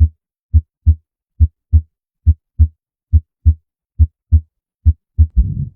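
Recorded human heart sounds: a regular lub-dub, two low thumps per beat, about 70 beats a minute. Near the end a beat runs into a longer whooshing sound, a heart murmur, the abnormal heart sound being demonstrated.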